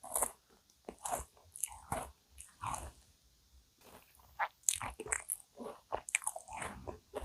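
Close-miked crunching and chewing of a cookie choux, a cream puff with a crisp cookie crust: irregular crunchy bites and chews, several a second.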